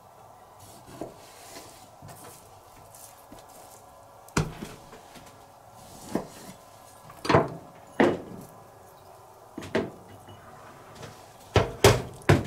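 Kitchen knife knocking on a plastic cutting board while slicing a yellowtail fillet into sashimi: about eight sharp knocks and clacks, the first about four seconds in, with three in quick succession near the end.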